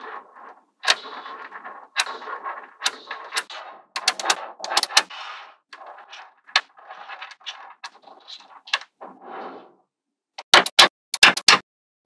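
Small magnetic balls rattling and rolling against one another as strips of them are handled and pushed into place, with sharp clicks as balls snap together. Near the end comes a quick run of loud clicks.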